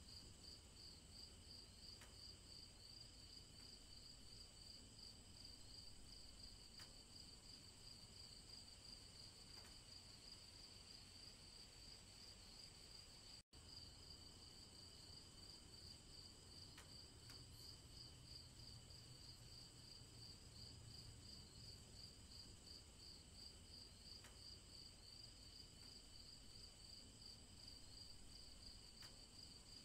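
Faint, steady chorus of crickets chirping in rapid pulses, with a low rumble underneath. It cuts out completely for an instant about a third of the way in.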